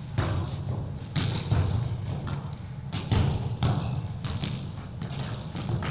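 Futsal balls being kicked against a wall and bouncing on the court, a string of irregular thuds echoing in a large sports hall.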